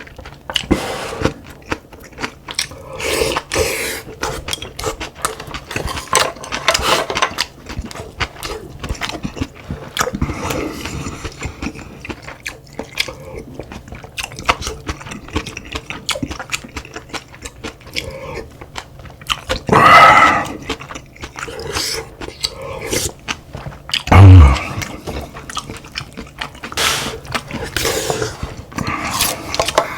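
Close-up eating sounds: chewing and mouth noises over rice, stew and kimchi, with many small clicks throughout. Two louder sounds stand out, one about two-thirds of the way through and a heavier one with a thud a few seconds later.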